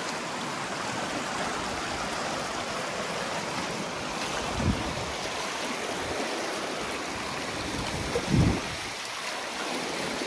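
Fast-flowing stream rushing over rocks in shallow whitewater rapids, a steady rush of water. There are two brief low thumps, about four and a half and eight seconds in.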